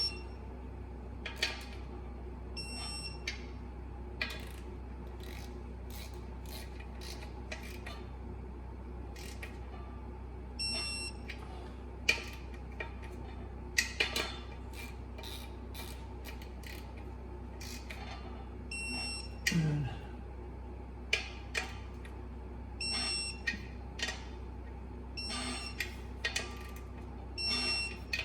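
Electronic torque wrench beeping as clutch bolts reach their set torque: several short high beeps at uneven intervals, among sharp clicks of the wrench and tools. A steady low hum runs underneath.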